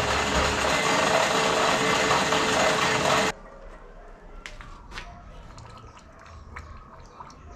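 Forge blower pushing air into a firebrick coal forge: a steady rushing noise with a low hum, cut off suddenly about three seconds in. Then, much quieter, scattered faint clicks and crackles as the red-hot leaf-spring steel blade is quenched in a can of oil.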